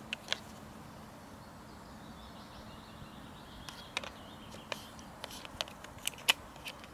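Short, sharp plastic clicks and taps from a Retevis RT24 walkie-talkie being handled, its back and battery pack fitted and pressed into place. Two clicks at the start, then a quick run of clicks in the last three seconds, the loudest shortly before the end.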